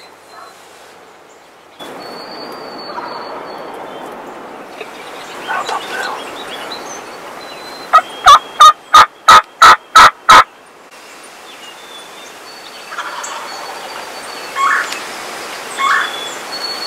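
Wild turkey calling: a run of about eight loud, evenly spaced calls, roughly three a second, near the middle, then a few shorter single calls toward the end.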